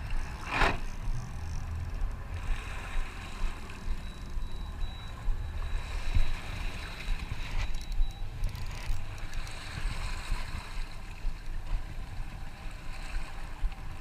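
Water sloshing and washing around a boat's stern over a steady low rumble, with a brief swish about half a second in.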